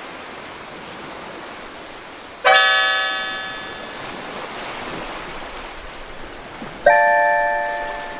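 Background music: sparse bell-like notes, one struck about every four seconds and ringing away slowly, twice in this stretch, over a steady hiss.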